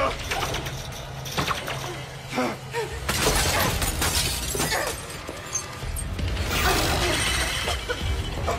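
Glass shattering as glass boxes are smashed open by hand, in a long crashing burst about three seconds in and another about six and a half seconds in, with sharp strikes before them.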